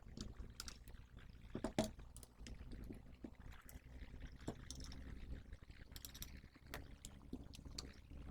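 Irregular clicks, taps and scrapes of tools working on an HP power supply's casing while it is being opened, with one louder knock about two seconds in.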